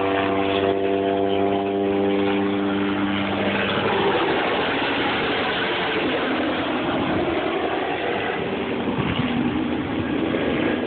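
Sheriff's helicopter lifting off and flying away. Its steady multi-tone hum gives way, a few seconds in, to a rushing, wavering noise with a falling pitch sweep as it climbs off into the distance.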